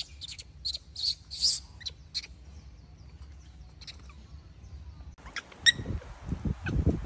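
Short, high-pitched chirps repeat a few times a second and fade out after about two seconds. About five seconds in, low rustling and scuffling start on the dry ground, with a brief high squeak.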